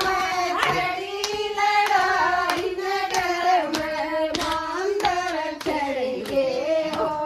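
Women singing a Haryanvi folk song in a held, wavering melody, with rhythmic hand claps about twice a second keeping the beat for dancing.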